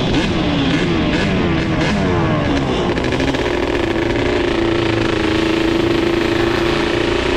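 Yamaha Banshee's two-stroke twin-cylinder engine revving up and down in quick throttle blips, then running at a steady pitch from about three seconds in.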